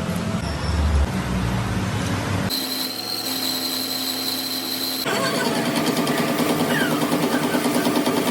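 Metalworking machine tools running, heard in three short spliced shots. A low hum gives way about two and a half seconds in to a steady high whine, then to a rhythmic, fast-repeating machining sound.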